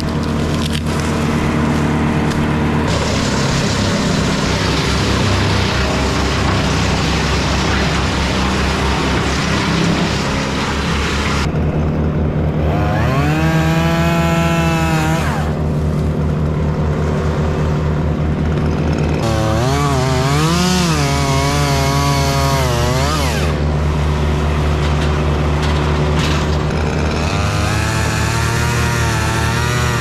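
Gas chainsaw running in the tree, mostly held at full throttle while cutting. Twice in the middle the cutting noise drops away and the engine note rises and falls on its own as the throttle is worked.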